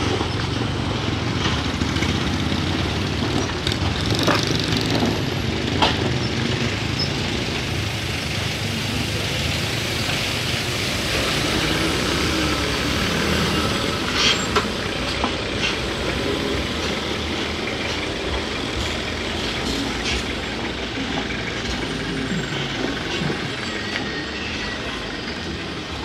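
Diesel engines of loaded light dump trucks labouring steadily as they climb a rough, rocky dirt slope, with a few sharp knocks.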